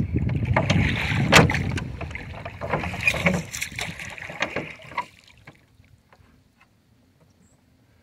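Knocks and clatter with water sloshing against a small duck boat's hull as a black Labrador retriever shifts its weight on the bow and leans down to a floating duck. One sharp knock about a second and a half in is the loudest; the noise dies away after about five seconds, leaving only faint ticks.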